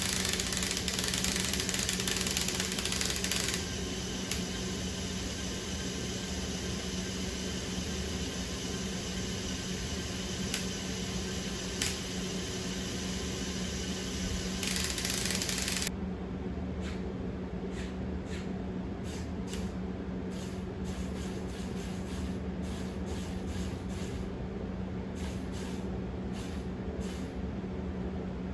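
Small electric motors of a Mould King 13106 toy RC forklift whirring in spells, loudest at the start and again for a moment about halfway. In the last ten seconds, irregular clicking from its gearing, which the builder puts down to a gray 20-tooth gear whose hole is too big, so it slips out of mesh.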